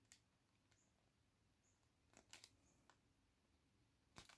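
Near silence: room tone with a few faint clicks and taps.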